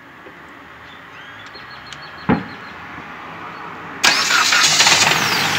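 Jeep engine started by jumping battery positive straight to the starter solenoid, bypassing a faulty TIPM module that will not send the start signal. A brief sharp snap comes about two seconds in, then about four seconds in the engine suddenly starts and keeps running loudly.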